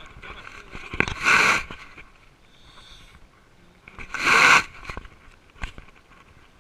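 Swimmer in choppy lake water, heard from a camera at the waterline: two loud rushing bursts about three seconds apart, with small sharp clicks and slaps of water against the camera.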